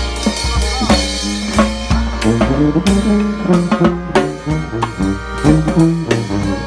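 Brass band playing an upbeat tune: a sousaphone bass line under trumpets and trombone, with drums keeping a steady beat.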